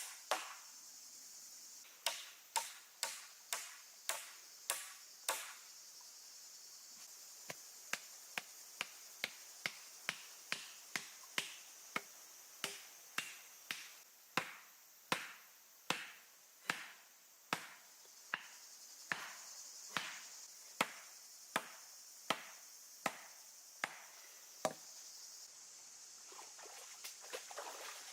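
Repeated chopping: a blade struck down onto a cutting surface again and again, about two strokes a second in runs with short pauses, over a steady high hiss.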